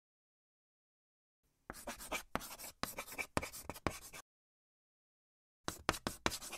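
Marker pen scratching across a writing surface in quick strokes, starting about a second and a half in. There are two runs of strokes, the second after a pause of about a second and a half.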